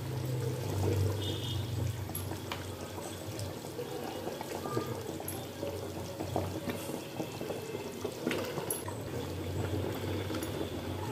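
Thick tamarind fish curry bubbling in a pan, with small splashes and pops as pieces of carp are slipped into the gravy one at a time.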